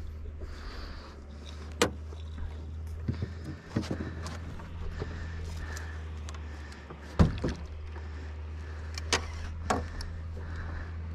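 Boat's outboard motor idling with a steady low hum, broken by several sharp knocks, the loudest about seven seconds in.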